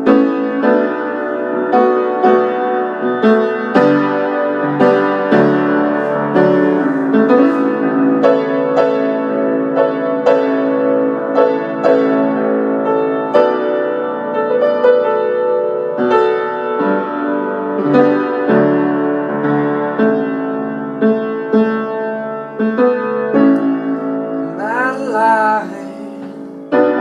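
Solo acoustic piano playing an instrumental passage of a slow soul ballad: struck chords and a melody line. Near the end the piano thins out under a brief wordless vocal that slides in pitch.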